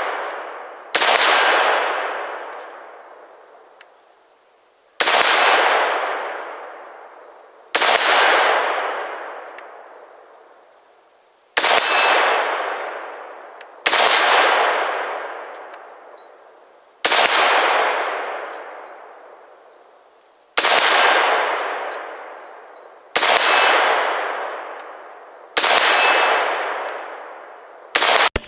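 About ten single, slowly paced semi-automatic shots from an Arsenal SLR-104FR rifle in 5.45x39mm, each 2.5 to 4 seconds apart. Each sharp crack is followed by a long metallic ringing tail that fades over two to three seconds.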